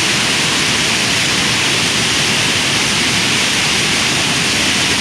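Waterfall's steady rush of falling water: a loud, even hiss that does not change.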